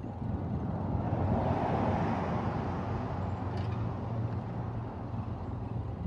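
A van drives past, its tyre and engine noise swelling to a peak about two seconds in and then fading as it moves off, over a steady low rumble.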